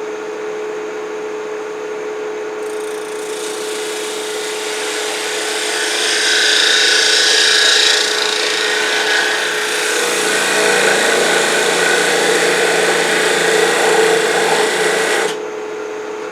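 Wood lathe motor running with a steady hum while an ultra-thin parting tool cuts into a spinning acrylic (plexiglass) disc. A loud scraping hiss starts about three seconds in, peaks midway, and cuts off suddenly near the end as the cut finishes, while the lathe keeps running. The heat of the cut is melting the acrylic along its edge.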